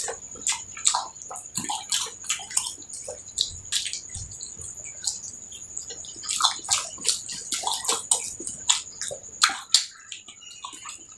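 Close wet eating sounds: mouth smacking and squelching of rice and curry, in quick irregular clicks.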